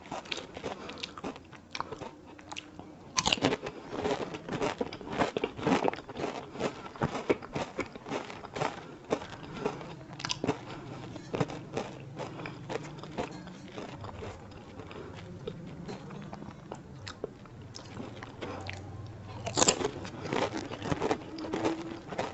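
Crisp fuchka (pani puri) shells being bitten and chewed: close, crackly crunching throughout, with louder crunches about three seconds in and again near the end.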